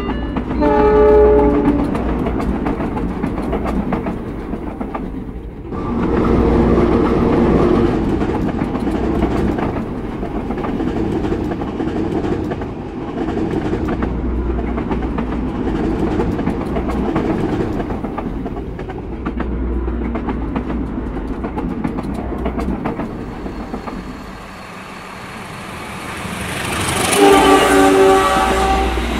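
A passenger train passing with a steady rumble and the clickety-clack of wheels over rail joints; its horn sounds at the start and again near the end.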